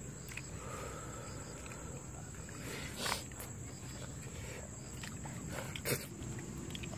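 Faint wet squelching and rustling of people eating rice and curry by hand from paper plates, over a steady outdoor background, with two brief louder rustles, one about three seconds in and one near the end.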